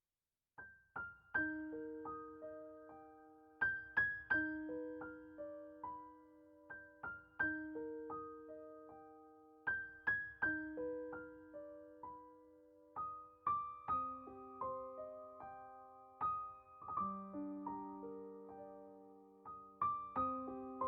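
Soft solo piano background music: a slow, gentle melody of struck notes over sustained low notes, starting about half a second in.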